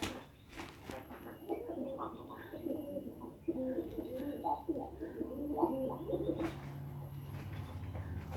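A pigeon or dove cooing: a run of low, wavering, bubbling coos starting about a second and a half in and fading out after about six seconds, followed by a faint low hum.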